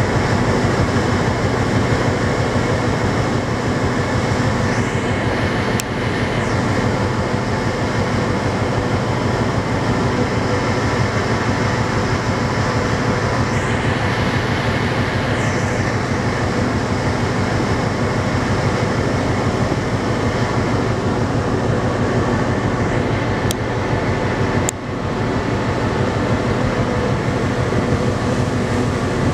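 Steady drone of a ferry's engines under way, with a low hum under a constant rushing of wind and water.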